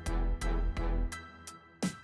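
Background music with a steady beat: sharp drum hits over deep bass pulses and held notes.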